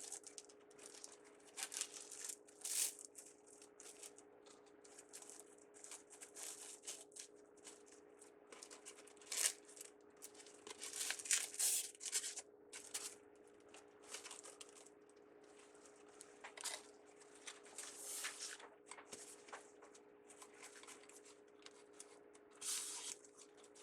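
Intermittent crinkling and rustling of ribbon and deco mesh being handled while a bow is gathered and tied with a pipe cleaner. A faint steady hum runs underneath.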